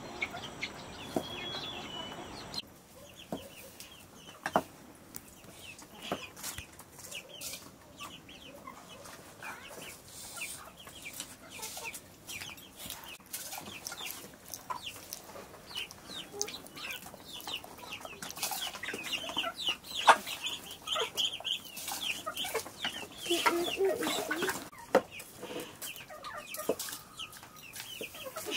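Chickens clucking steadily in the background, with scattered light clicks and patters of rice grains being handled and dropped into a pot of water. It opens with a couple of seconds of water splashing as rice is rinsed in an aluminium pot.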